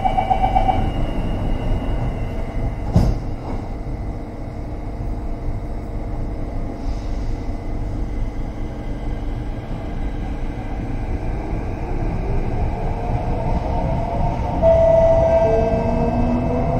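Kawasaki Sifang T251 metro train pulling away, heard from inside: its Mitsubishi Electric SiC hybrid IGBT-VVVF traction inverter whines in several rising tones as the train accelerates from a standstill. The rising tones start about twelve seconds in, over a steady low rumble. There is a single sharp knock about three seconds in, and a brief pulsing beep at the very start.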